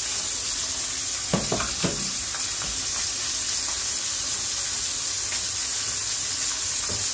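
Chops frying in hot fat in a stainless steel pan, a steady sizzle. A few short knocks of cookware come about a second and a half in.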